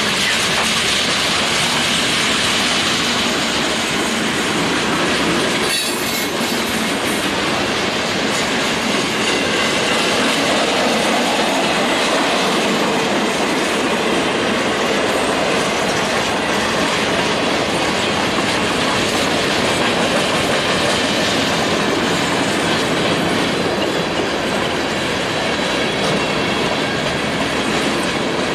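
Cars of a Norfolk Southern mixed freight train rolling past: a steady, loud noise of steel wheels on rail, with one sharp knock about six seconds in.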